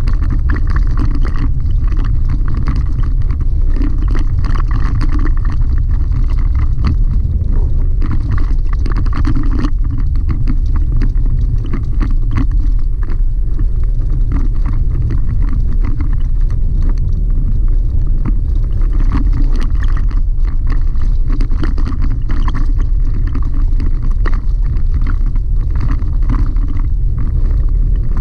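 Chevy Colorado ZR2 pickup driving steadily on a gravel dirt road, heard from inside the cab: a loud, constant low rumble of tyres, suspension and engine, with many small ticks from loose gravel.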